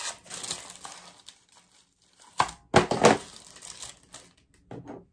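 Paper packaging of a gift box crinkling and rustling as it is unwrapped, with a few louder crackles about two and a half to three seconds in.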